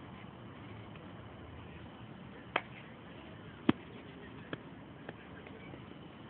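Sharp knocks of a bat hitting softballs during batting-cage practice. Two strong knocks come about a second apart near the middle, the second the loudest, and two fainter ones follow.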